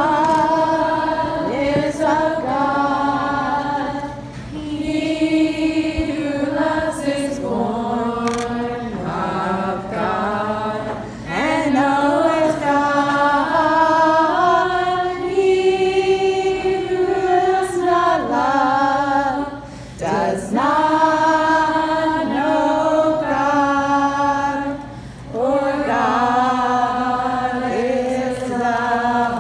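A group of young people singing together unaccompanied, in sung phrases of a few seconds with brief pauses between them.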